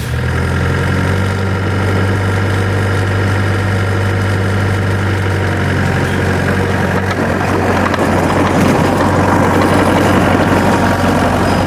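Heavy engine idling steadily, a low even hum that turns noisier and rougher in the second half.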